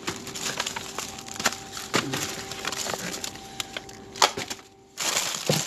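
Hands rummaging through a dumpster full of discarded packaged food: plastic wrappers and packaging crackle and crinkle, with scattered clicks and knocks as items are shifted, and a louder burst of rustling near the end.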